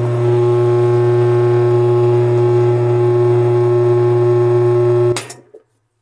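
Whirlpool top-load washer's drive motor humming steadily on the spin setting while the spin shaft stays jammed by clothing wound under the rotted tub, then cutting off abruptly with a click about five seconds in.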